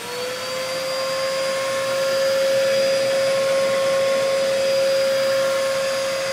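Dyson upright vacuum cleaner's motor running with a steady high whine and rushing air, getting louder over the first couple of seconds as it comes up to speed. It runs with all its filters fitted, pulling air through a hose into a suction gauge.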